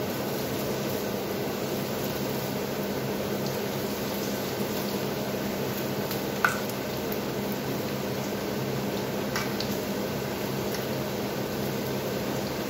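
Akara bean fritters frying in hot oil in a pan, a steady sizzle. A fork clinks sharply against the pan once about six and a half seconds in, with a few lighter taps around it.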